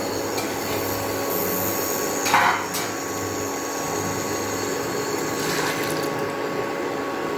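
Milk being poured into a pressure cooker over pumpkin pieces, a steady liquid pour, with a brief clink about two seconds in.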